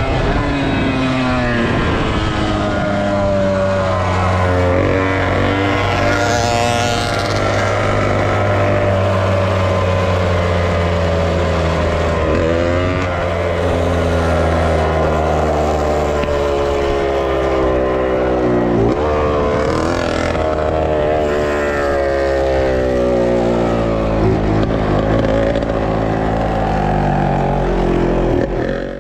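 On-board sound of a 125cc motocross bike's engine at race pace, its pitch rising and falling as it is revved and shifted, with sharp drops in pitch a few times where the throttle is chopped.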